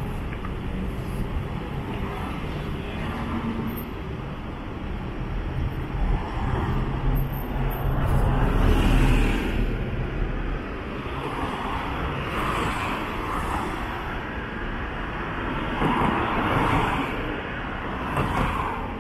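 City street traffic: a steady rumble of cars passing, with one vehicle going by loudest about halfway through and a few smaller swells as others pass later.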